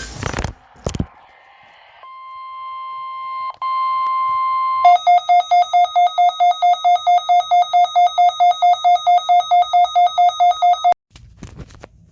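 Emergency Alert System weekly-test alert tones: a steady tone just above 1 kHz for about three seconds, then a rapid, buzzy beeping about five times a second for six seconds that cuts off suddenly.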